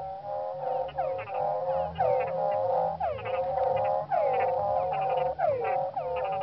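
A chorus of many frogs and toads calling over one another: repeated downward-sweeping calls mixed with rapid pulsed, rattling notes, with no break.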